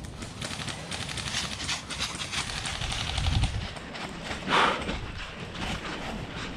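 Footsteps of a player moving quickly over rough ground, with short clicky knocks and a louder brushing noise about four and a half seconds in.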